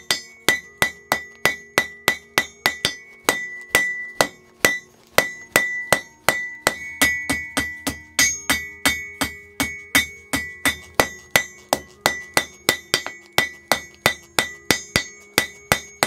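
Hand hammer striking a red-hot bar on an anvil, about three blows a second with a short pause a few seconds in, each blow ringing. The bar's end is being forged square and drawn out to a point.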